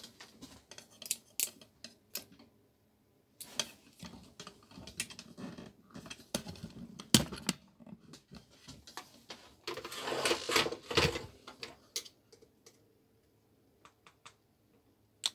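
Irregular clicks, taps and light rattles of hands handling the opened radio's small parts and wires on a workbench, with a denser clatter of handling about two-thirds of the way through.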